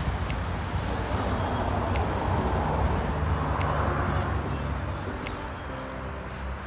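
Outdoor background noise: a steady low rumble with a few faint clicks.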